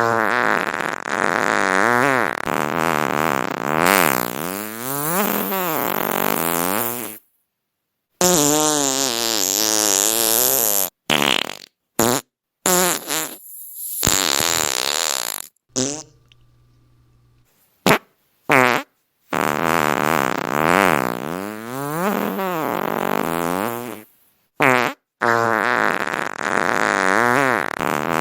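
A run of fart sounds, one after another. Long ones last several seconds each with a pitch that wavers up and down, and a few short blasts come in between. Each is cut off by an abrupt silent gap.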